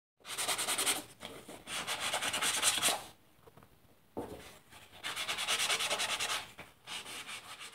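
Repeated rasping, scraping strokes in bursts of a second or so, with short gaps between them.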